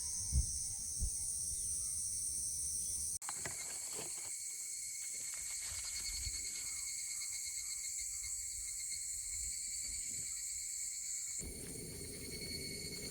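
A steady, high-pitched chorus of insects chirping outdoors. Its pitch and pattern change abruptly about three seconds in and again near the end, and there are a couple of soft low knocks in the first second.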